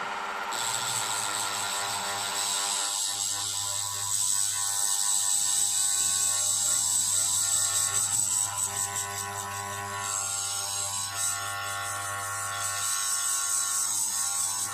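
Small electric mini drill grinding into an eMMC chip, a high whine over a steady low motor hum. The whine wavers as the bit works and eases off about ten seconds in before picking up again.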